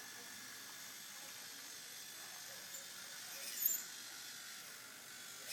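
Robot arm's hobby servos moving, mostly a faint steady hiss with a short high-pitched squeak about three and a half seconds in and another near the end.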